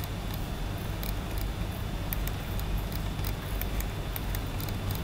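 Steady low hum of room noise, with scattered faint clicks and ticks from a computer mouse as the drawing is zoomed with the scroll wheel.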